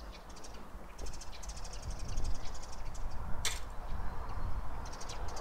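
Outdoor ambience: a low rumble with small birds chirping and twittering, and a single sharp click about three and a half seconds in.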